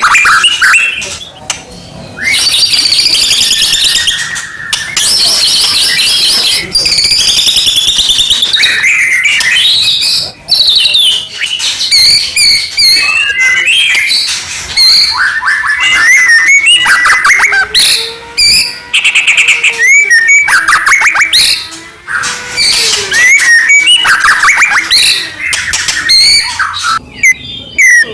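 White-rumped shama (murai batu) singing a loud, varied song of rapid trills, whistled sweeps and chips, phrase after phrase with only brief pauses.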